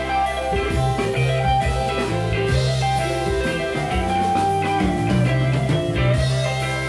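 Live rock band playing a blues-rock groove: electric guitars, keyboard and drum kit over a steady low line, continuing without a break.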